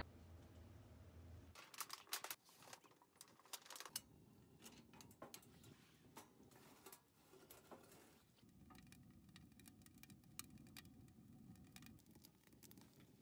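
Faint crackling and popping of a wood fire burning in a stainless steel wood stove: irregular sharp snaps that begin about one and a half seconds in.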